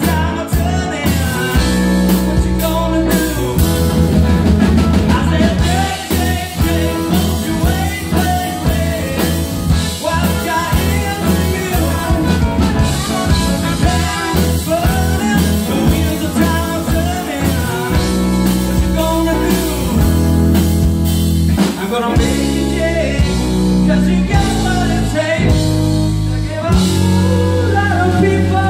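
Live rock band playing loudly, with a man singing over electric guitar, bass guitar and drum kit.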